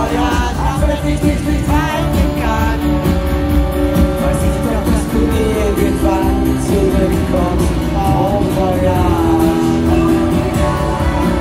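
Live pop-rock band playing through a concert hall's PA, with a melody line over guitars, keyboards and drums.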